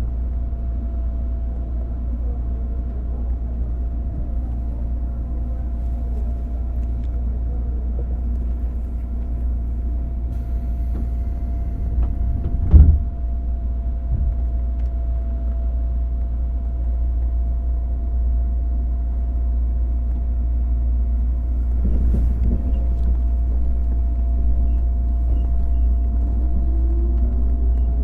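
Interior running sound of a JR 205 series motor car with MT61 externally-fanned traction motors: a steady low rumble with a constant hum, one loud thump about thirteen seconds in, and a motor whine rising in pitch near the end.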